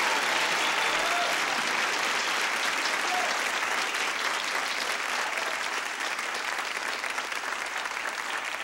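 Studio audience applauding, the clapping slowly dying down, with a few shouts from the crowd in the first seconds.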